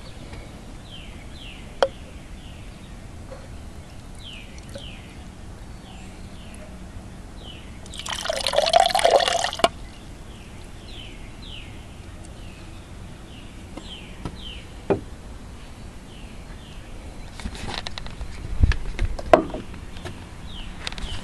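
Liquid pours or splashes in a short rush of about two seconds, midway through. Small birds chirp in short falling notes throughout, and a few sharp knocks sound near the end.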